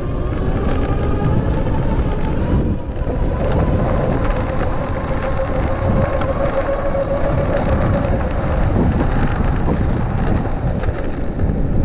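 Electric bike's 48V 1000W rear hub motor whining steadily under throttle, the whine fading out about three quarters of the way through. Heavy wind rumble on the microphone runs under it and is the loudest sound.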